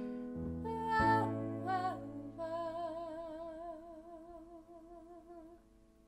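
A woman's voice sings a closing wordless phrase over sustained electronic keyboard chords, then holds one long note with vibrato that stops near the end while the chords fade away.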